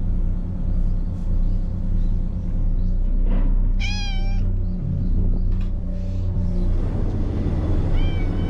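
A white stray cat meowing: one loud, wavering, drawn-out meow about four seconds in, and another starting near the end. The cat is in a bad mood, taken for jealousy.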